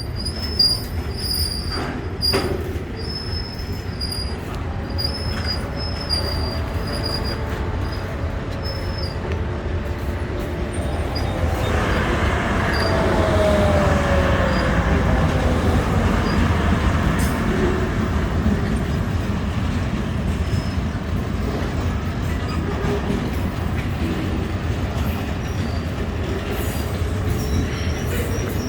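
Freight train of tank wagons rolling along the track: a steady rumble of wheels on rail with occasional wheel squeal, one squeal gliding downward. The rumble grows louder about twelve seconds in.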